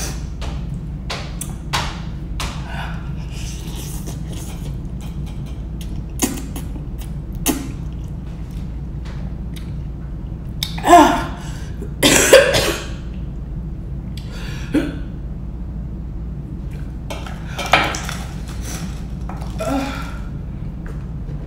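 A metal fork clicking and scraping on a plate of spicy instant noodles in scattered taps. About halfway through come two loud breathy coughs as the eater reacts to the heat. A steady low hum runs underneath.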